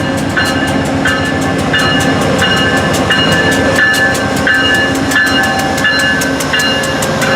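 VIA Rail passenger coaches rolling past, with a steady run of wheel clicks over the rail joints. A railroad crossing bell rings over it in even, repeated strokes.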